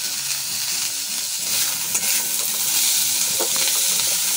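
Chopped vegetables stir-frying in a metal kadai, sizzling steadily, with a metal spatula scraping and clinking against the pan as it turns them. The sizzle grows a little louder about a second and a half in.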